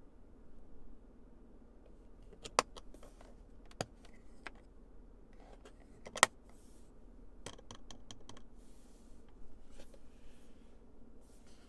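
Scattered light clicks and taps, with two sharper knocks about two and a half and six seconds in.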